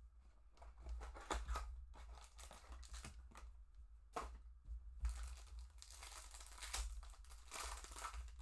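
Foil trading-card pack wrapper crinkling and tearing as it is ripped open by hand, in irregular bursts that grow busier in the second half.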